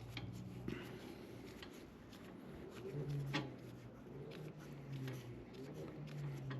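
Quiet handling noise of the rear axle hardware of a Harley-Davidson being worked by hand: light clicks and rubbing, with one sharper click about three and a half seconds in.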